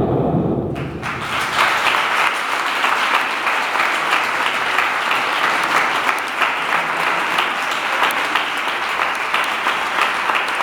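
An audience applauding steadily, the sound of many hands clapping at once; the dance music's last notes die away within the first second.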